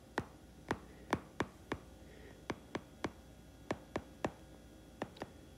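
Stylus tapping on a tablet's glass screen while handwriting: a quick, irregular series of short, sharp taps, about three a second.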